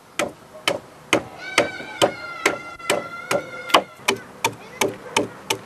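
A hatchet chopping the end of a wooden stake to a point, about two to three strikes a second, each a sharp woody chop. A held high tone sounds behind the chops for about two seconds in the middle.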